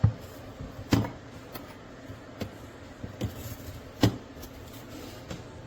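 Three sharp knocks, at the start, about a second in and about four seconds in, with a few lighter ticks between them, over a steady low background.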